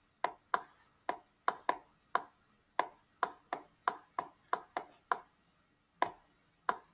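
Stylus tip clicking against a tablet screen during handwriting: a run of short, sharp, irregular clicks, two or three a second, with a pause of about a second near the end.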